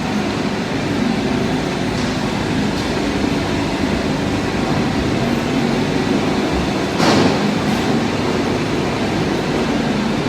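Small palm oil milling plant running: a steady mechanical drone of motors and processing machinery, with one sharp metallic knock about seven seconds in.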